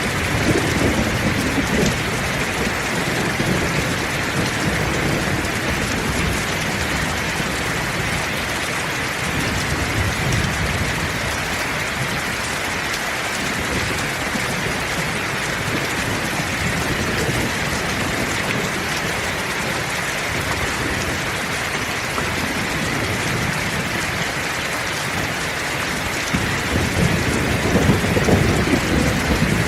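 Heavy rain falling steadily in a thunderstorm. Thunder rumbles in the first couple of seconds and builds again near the end.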